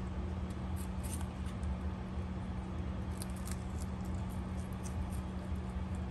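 A rabbit chewing apple and lettuce, with faint crisp crunches in small clusters, over a steady low hum.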